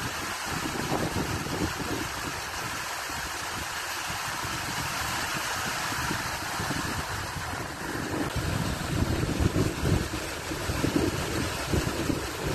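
Stream water rushing steadily as it tumbles over a low drop into white water. From about two-thirds of the way in, gusts of wind buffet the microphone in uneven thumps.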